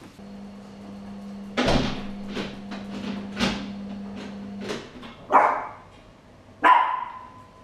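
A door shuts with a heavy knock about one and a half seconds in, followed by a run of short sharp sounds. Then a small dog, left alone in the flat, barks twice in the second half.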